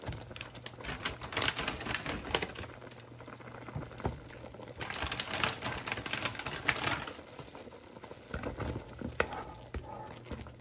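Dried rice vermicelli (bihon) blocks going into simmering broth, crackling and bubbling with dense rapid clicks in two spells, one for each block, the second about five seconds in. A few sharper ticks near the end as a spatula presses the noodles down.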